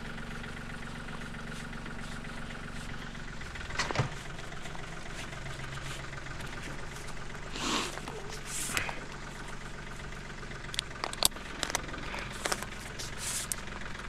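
An engine idling steadily, its note shifting slightly about four seconds in, under scattered rustles and sharp clicks of climbing rope and hardware being handled.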